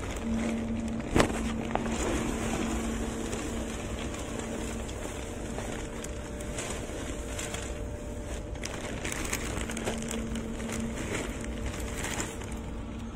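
Wood pellets pouring from a bag into a pellet smoker's metal hopper: a steady rushing rattle as the pellets pile up, with a sharp knock about a second in.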